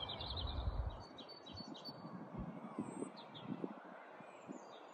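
A small bird chirping faintly in quick runs of short, high notes, mostly in the first couple of seconds, with a few more later. A low rumble of wind or handling sits under it near the start.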